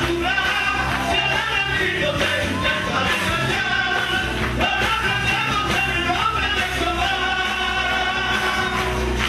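Live group singing: several men's voices in harmony with long held notes, over a band with acoustic guitar and bass.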